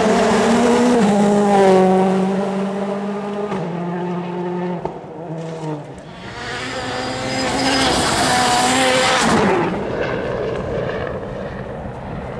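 Ford Fiesta RS WRC rally car at full throttle, its engine note stepping up and down with quick gear changes and lifts. About six seconds in, a second rally car passes with a rush of tyre noise, its engine note falling as it goes by.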